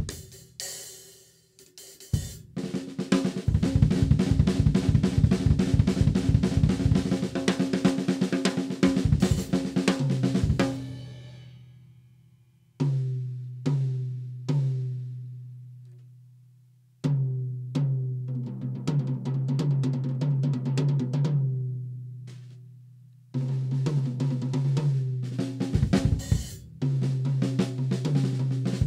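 PDP MX maple-shell drum kit being played: a fast, dense run of strokes across the drums that rings away, then a few single drum strikes left to ring out with a clear low pitch, then beats with hi-hat and cymbals resume.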